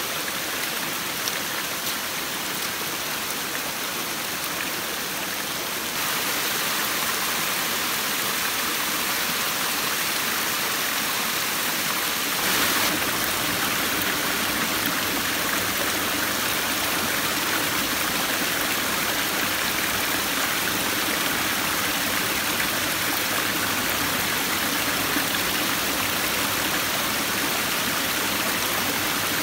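Steady rushing water, with abrupt changes in its tone about six seconds and about twelve seconds in.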